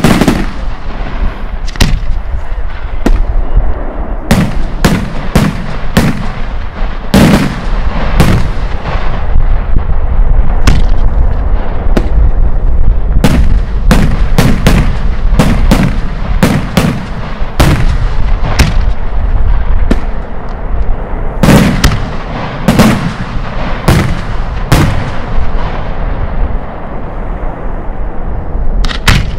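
Italian aerial firework shells bursting overhead: an irregular string of loud bangs, roughly one a second and sometimes two close together, with a low rumble rolling on between them.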